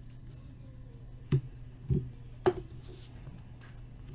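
Three short knocks about half a second apart, from cards and card boxes being handled and set down on a tabletop, over a steady low hum.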